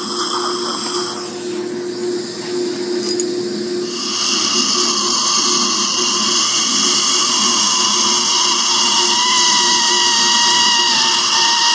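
Dental surgical equipment running at the bone cavity around an impacted lower third molar: a steady high-pitched whine with hiss, which gets louder about four seconds in.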